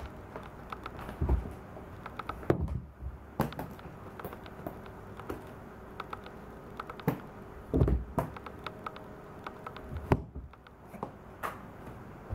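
A cat shifting and rolling inside a thin plastic storage box: scattered light taps and scrapes, with a few dull thumps as its paws and body knock against the plastic walls and floor.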